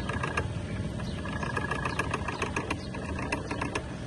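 Cotton candy machine running, its spinner head turning steadily with a mechanical hum and a quick, irregular clicking rattle while sugar floss is spun out.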